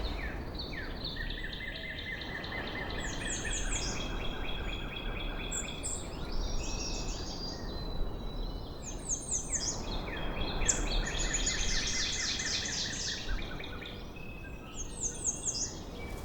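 Birds calling in a natural ambience: rapid trills and short chirps, several overlapping, over a steady low background rumble.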